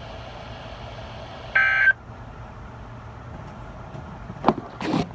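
A short, buzzy burst of Emergency Alert System data tones, the end-of-message code, about one and a half seconds in, over a steady low hum and hiss. Two sharp knocks near the end.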